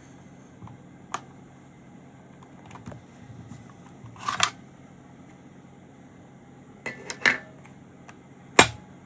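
Light clicks and clatter of small hard objects being handled, about half a dozen sharp ones spread over several seconds, over a faint steady hum.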